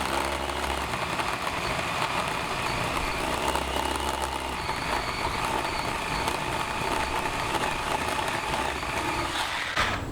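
Ryobi 18-volt battery chainsaw running and cutting wood, a steady motor and chain noise that cuts off suddenly near the end. The battery is starting to struggle.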